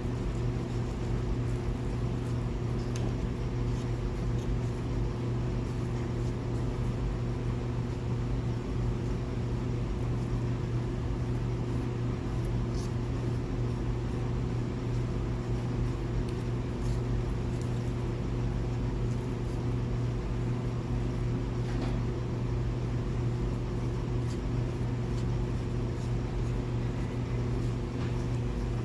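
A steady mechanical hum, unchanging throughout, with a few faint scattered ticks on top.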